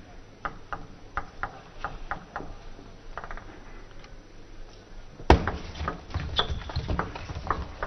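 Table tennis ball ticking off bats and table in a quick rally, about three hits a second. About five seconds in comes a loud smack, followed by scattered clapping.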